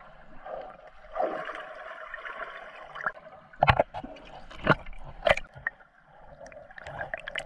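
Swimming-pool water heard underwater: muffled swirling, gurgling water and bubbles, with three sharp knocks about a second apart near the middle.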